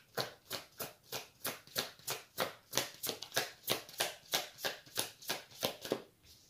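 Deck of tarot cards being shuffled by hand, the cards riffling in short, even strokes about three times a second and stopping near the end.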